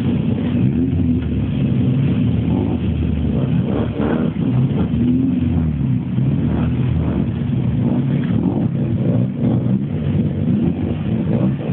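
Naturally aspirated rotary engines (13B and 12A) of Mazda 808 race cars running as the cars roll slowly, their pitch rising and falling with the throttle.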